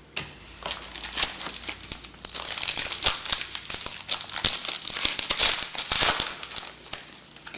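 A trading-card pack wrapper being torn open and crinkled, a busy run of crackling and rustling that is heaviest through the middle.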